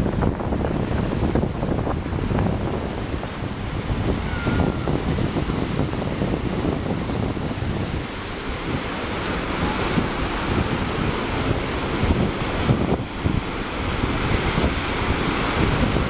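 Ocean surf breaking and washing up the sand at the water's edge, with wind buffeting the microphone. The foamy hiss of the wash grows louder in the second half.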